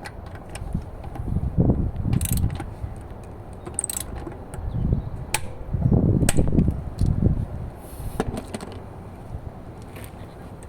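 A wheel bolt being refitted and tightened with a hand wrench: a few sharp metal clicks among low knocks and rumble from handling the tool.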